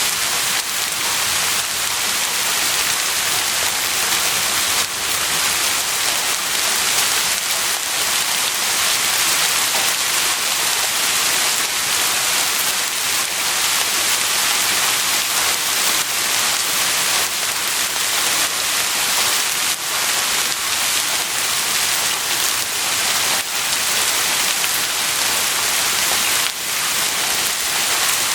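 Heavy rain falling steadily, a dense even hiss of drops hitting a surface.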